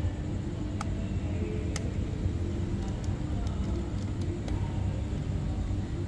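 Huina remote-control excavator running with a steady, low, engine-like idling rumble, with a couple of sharp clicks in the first two seconds.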